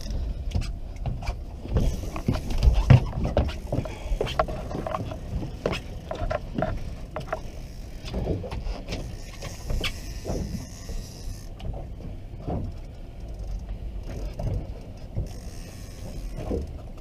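Fishing reel clicking and ticking irregularly as a hooked leerfish is fought on a bent rod, over a steady low rumble.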